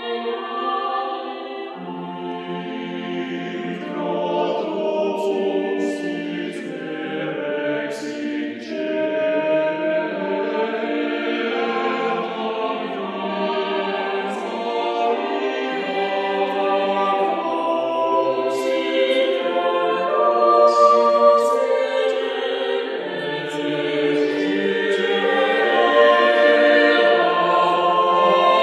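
Background choral music: a choir singing slow, sustained chords.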